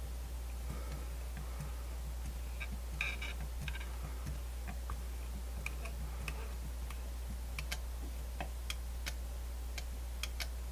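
Light, irregular clicks and ticks from the Grundig FR-200's tuning-dial and pointer mechanism being turned and handled. The clicks come more often in the second half, over a steady low hum.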